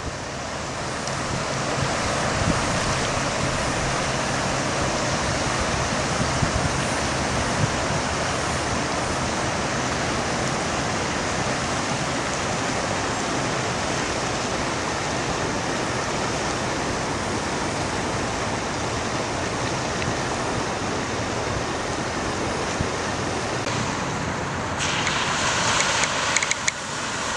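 Floodwater rushing in a swollen desert river channel that is normally dry, a steady, even sound of running water. About 25 seconds in, a hissier sound comes in over it.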